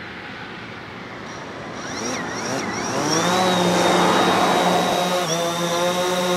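DJI Phantom quadcopter spinning up its four motors about two seconds in, the pitch rising as it lifts off. It then holds a steady, high propeller whine and buzz while hovering low.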